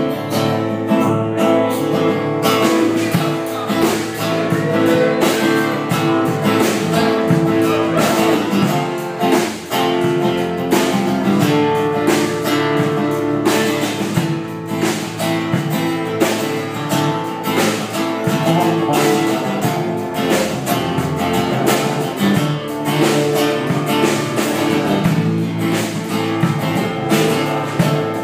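Live band playing an instrumental passage: strummed acoustic guitar over electric guitar, in a steady rhythm.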